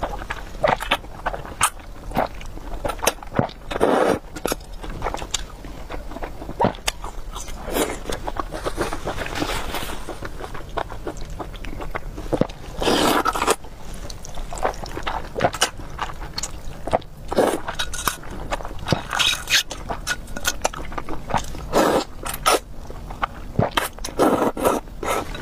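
Close-miked eating of rice noodles in broth: irregular wet chewing, mouth smacks and clicks, with short slurps now and then.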